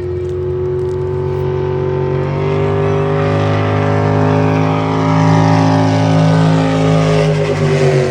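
Racing motorboat engine running at high speed, growing louder for several seconds, then dropping in pitch near the end as the boat goes by.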